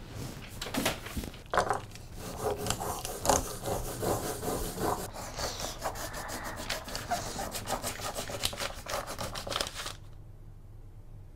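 Pencil scribbling hard and fast on paper in rapid rasping strokes, which stop suddenly about ten seconds in.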